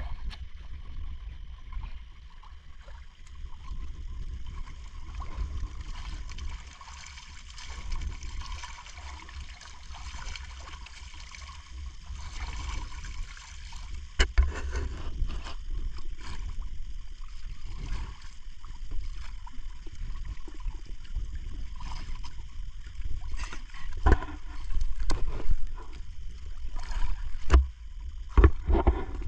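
Sea water sloshing and gurgling against the hull of a small outrigger boat on choppy water, over a steady low wind rumble on the microphone. A few sharp knocks come about halfway through and again near the end.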